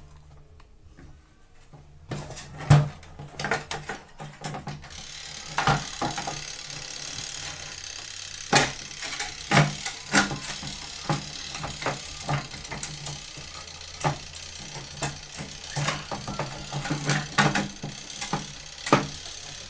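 Irregular clicks and knocks of plastic parts as the top cover of a twin-tub washing machine is fitted back into place over the control panel.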